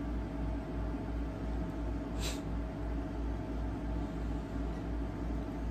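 Steady low rumble and hum of room background noise, with one brief soft hiss about two seconds in.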